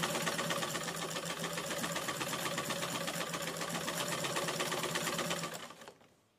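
Electric sewing machine running steadily, stitching the folded hem of a sheer curtain panel, then slowing and stopping near the end.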